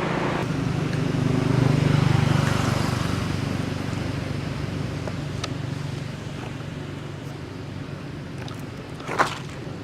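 A motor vehicle's engine rumbling past, loudest about two seconds in and then fading away, with a sharp click near the end.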